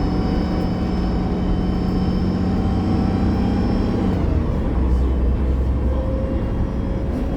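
Drivetrain of a 2015 Gillig Low Floor CNG transit bus, with a Cummins Westport ISL G natural-gas engine and a Voith D864.5 automatic transmission, running under way and heard from inside the bus: a low rumble with a steady whine. About four seconds in the whine slides down in pitch and fades, and a lower steady tone follows.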